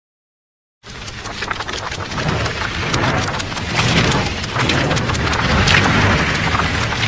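Silence, then about a second in heavy rain with a low thunder rumble starts abruptly and continues, dense with sharp crackles.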